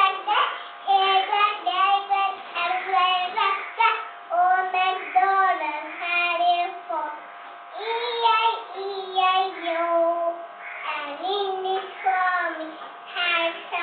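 A young girl singing a song on her own, phrase after phrase of short held notes with brief breaks between them.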